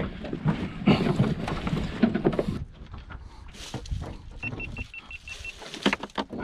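Knocks, bumps and rustling as a flounder is handled and an ice cooler's lid is held open to put it in. About two-thirds of the way through comes a quick run of about eight short, high, even beeps, then a couple of sharp knocks.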